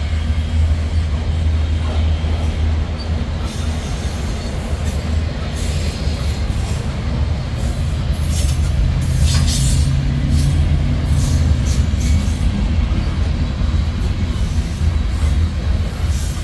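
Freight train rolling past with a steady heavy rumble of wheels on rail. Brief high-pitched wheel squeals come through a few times in the middle.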